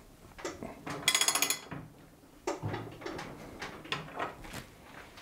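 Hand ratchet wrench clicking in a quick run of rapid ticks, followed by scattered clinks and knocks of steel tools on metal, as the rear axle and chain adjuster of a motorcycle are tightened by hand.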